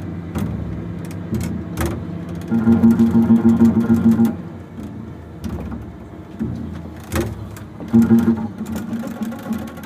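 Double bass played solo in a free, improvised style: low pitched notes, some held and pulsed with fast repeated strokes, broken by a few sharp knocks on the instrument.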